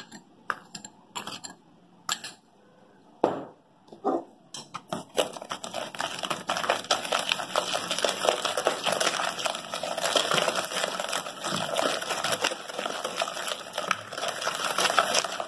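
Spoon beating ghee and powdered sugar in a plastic bowl. A few scattered taps, then from about five seconds in a continuous fast scraping and clicking of the spoon against the bowl as the mixture is creamed.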